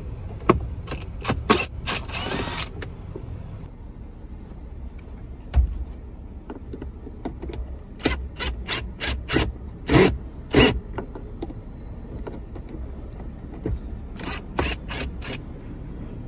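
DeWALT 20V MAX brushless cordless drill/driver run in short trigger bursts, backing out the screws that hold the lower dash panel. There are three spells of quick whirring bursts, about a second in, around eight to ten seconds in, and again near the end.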